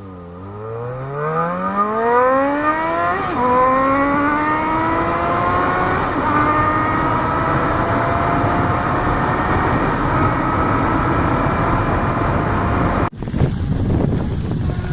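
Yamaha XJ6's four-cylinder engine accelerating hard from low revs, the pitch climbing steeply with upshifts about 3 and 6 seconds in, then held high and steady. A sudden break about 13 seconds in gives way to rougher engine sound with wind noise.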